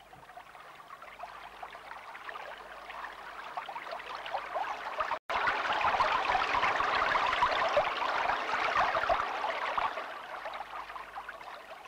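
Rushing, splashing water, standing in for flood water. It grows louder over the first five seconds, cuts out for an instant, stays loudest until about ten seconds in, then fades away.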